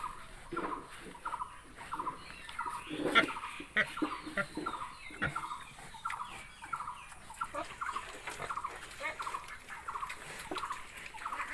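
Farm animals calling: a short call repeated about twice a second, with a cluster of louder, higher calls a few seconds in.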